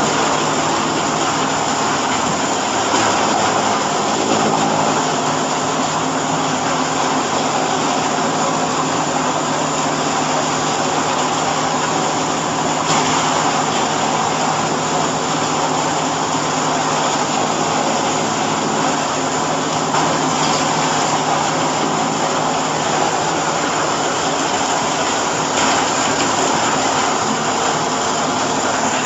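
Hydraulic hay bagging baler running: steady machine noise with a low, even hum.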